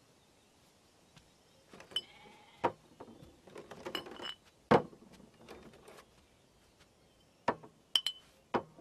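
Scattered wooden knocks and clunks from timber being handled, starting about two seconds in, the loudest just past the middle, with a few short high squeaks among them.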